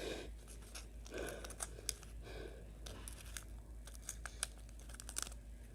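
Scissors snipping through a Pokémon booster pack's wrapper, with faint crinkling of the pack and scattered small clicks from the blades.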